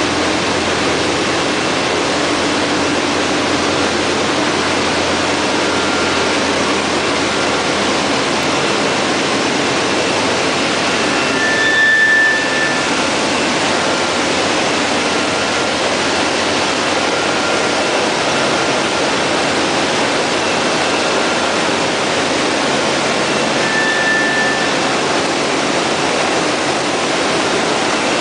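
Steady, loud rushing noise of a corrugated-cardboard single-facer line running. A brief high squeal rises above it about halfway through, and a second one comes near the end.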